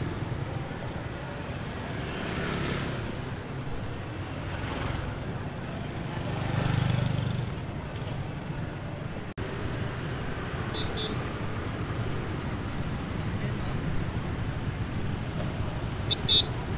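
Busy city street traffic: motorbikes and cars running past one after another, each passing swell rising and fading, with people's voices mixed in. Two short high beeps sound, one about two-thirds through and one near the end.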